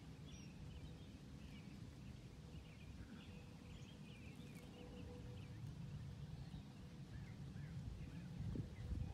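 Faint birds chirping and twittering over a low, even background rumble.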